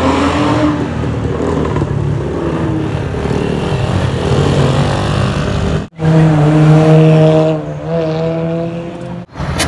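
Motorcycles and cars revving and accelerating along a street, with loud exhaust notes rising in pitch. The sound drops out sharply twice. After the first drop-out, a loud steady engine note is held for about a second and a half.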